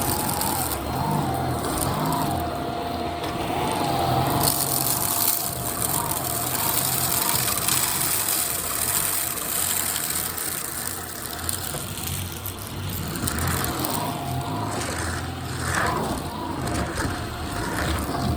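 Shark Rocket stick vacuum running over a hard floor with a steady motor noise and a thin whine.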